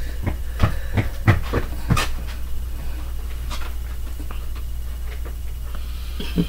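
Short clicks and smacks of a mussel being handled and eaten, many in the first two seconds and only a few after, over a steady low hum.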